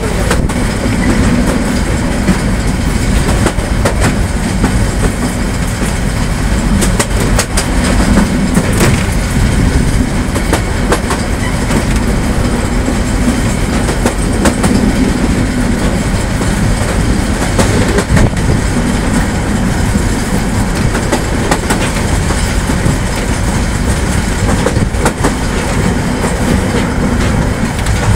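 LHB passenger coaches running at speed, heard from aboard the train: a steady loud rumble of wheels on track, with irregular clicks of wheels over rail joints.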